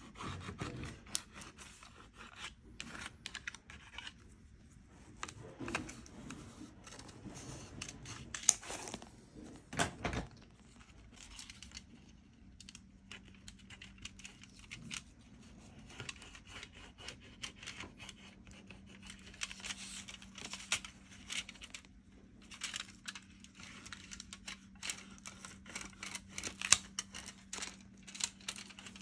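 Close handwork on an electric guitar during a setup: irregular rubbing and scraping with many small sharp clicks and taps, and a faint steady low hum from about a third of the way in.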